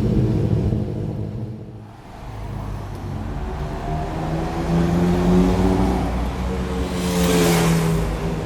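Flat-six engine of a Porsche 997-based Gemballa Avalanche: loud at first, dying away about two seconds in, then running again with a steady note that builds and holds. A short rushing noise comes near the end.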